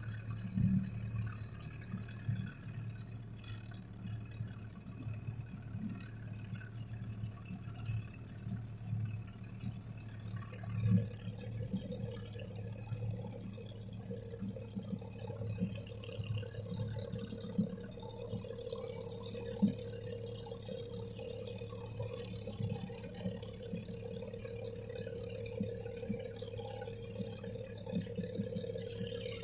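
Small fishing boat's motor running steadily at trolling speed: a low, even hum, joined by a steady higher whine about eleven seconds in. Water splashes lightly against the hull.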